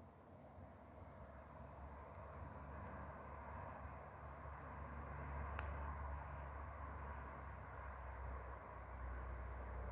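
Quiet outdoor ambience: a low rumble that grows a little louder, with faint high-pitched chirps every second or so and a single click a little past halfway.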